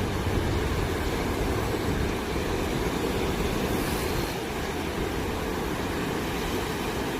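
Sea waves breaking on the shore: a steady low rumble of surf with no distinct single crashes.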